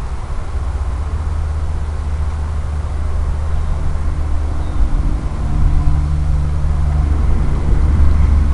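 Low, steady rumble of wind on the microphone, growing slightly louder, with a faint steady hum coming in about halfway through.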